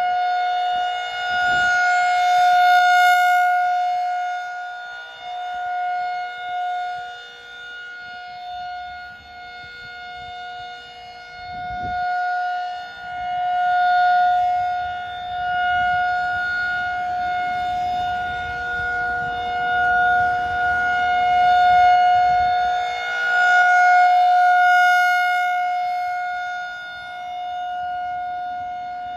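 Outdoor tornado warning siren sounding a steady, loud tone for a tornado drill, swelling and fading in loudness every few seconds.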